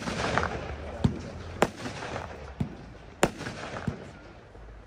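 Funke Argento 'Scarlett' consumer firework (category F2) firing a series of shots: five sharp bangs spaced about a second apart or less, some followed by a short hiss of burning sparks.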